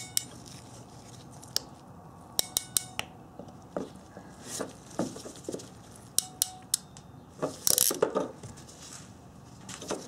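Ratcheting heat-shrink connector crimper (Ancor 702010) clicking through its ratchet as it crimps a butt connector onto a wire. Short runs of sharp metallic clicks come every second or two, with the loudest cluster a little before eight seconds in.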